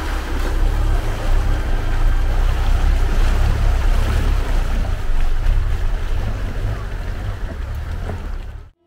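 Safari vehicle wading through a flooded stream crossing: water churning and splashing along its side and wheels, with heavy wind rumble on the microphone. The sound cuts off sharply near the end.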